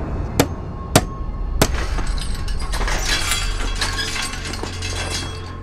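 A steel pipe gate being handled and chained shut: three sharp metal knocks about half a second apart, then a dense run of metallic rattling and clinking.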